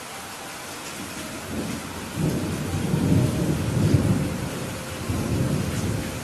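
Heavy rain pouring steadily, with a long roll of thunder rumbling in about a second and a half in, growing loudest in the middle and dying away near the end.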